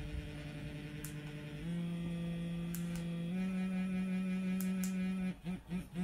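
Vibrator motor in a wearable clitoral stimulator, buzzing steadily. Its pitch steps up twice as the intensity is raised, then it switches to a pulsing pattern of about three pulses a second near the end. A few short clicks come between the changes.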